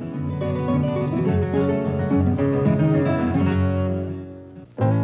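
Instrumental background music led by plucked guitar. It fades down near the end, and a new, louder passage of music starts abruptly just before the close.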